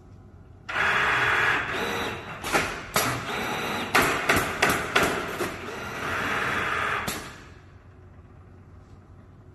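Allio automatic canvas stretching and stapling machine running through a cycle: a steady rushing machine noise with a quick series of about eight sharp staple shots in the middle, then it stops.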